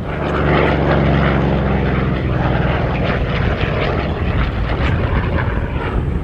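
Piston-engined propeller aircraft running loud and steady, a deep engine note with strong low harmonics.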